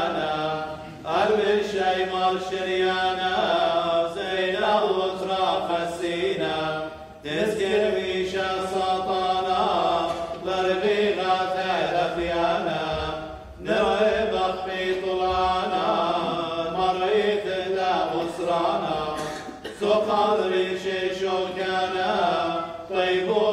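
Clergy chanting a Syriac liturgical hymn, unaccompanied, in sung phrases of about six seconds with short breaks between them.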